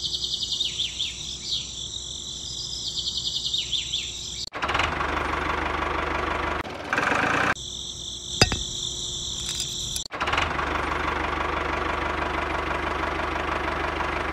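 Crickets chirring, cut off suddenly after about four seconds by a steady engine-like running sound with a low hum. The chirring comes back briefly in the middle with a sharp click, then the running sound takes over again for the rest.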